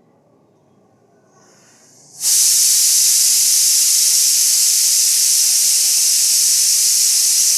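A loud, steady hiss starts suddenly about two seconds in and holds without change.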